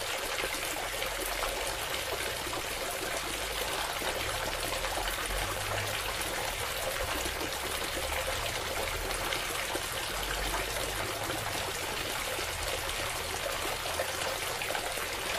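A thin stream of water pouring steadily from a miniature toy tap and splashing onto wet mud, a continuous trickling splash. A low rumble comes and goes underneath.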